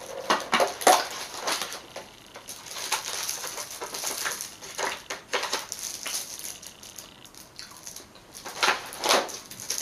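Plastic and foil candy wrappers and a clear plastic tub crinkling and crackling as they are handled, in irregular bursts.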